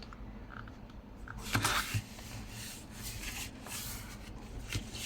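A finger pressing and rubbing along a fold in cardstock, making a soft paper rustle with two short, louder scrapes a little over a second and a half in.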